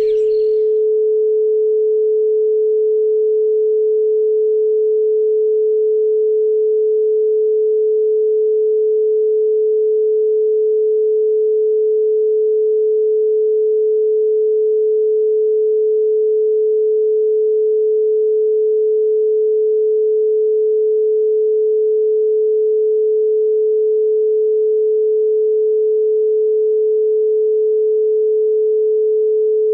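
A steady, unbroken pure sine tone held at one pitch, a 432 Hz healing-frequency tone.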